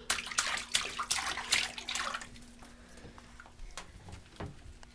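Bath water splashing and dripping in a bubble bath, a flurry of small splashes in the first two seconds, then only a few scattered drips.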